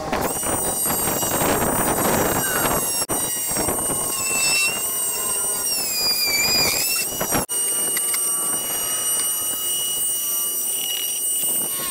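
Corded Dremel rotary tool cutting through black ABS plastic sheet: a high, steady whine over a gritty cutting noise. The pitch sags partway through as the bit bites under load, then recovers. There are two momentary breaks in the sound.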